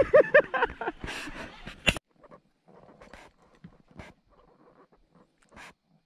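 A man's voice for about two seconds, cutting off suddenly, then faint, irregular clicks and taps.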